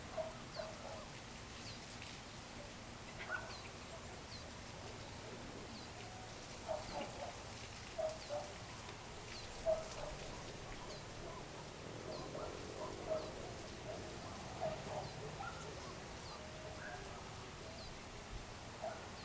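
Birds calling at dusk: short, low calls come irregularly, a few close together, over a faint high chirp that repeats about once a second.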